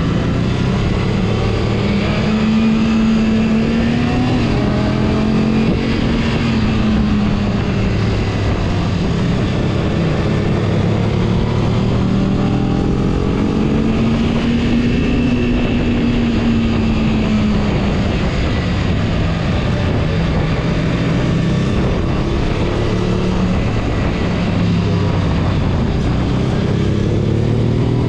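Honda Hawk motorcycle's engine running at road speed through a series of bends, its revs rising and falling as the rider rolls the throttle on and off, over a steady rush of wind.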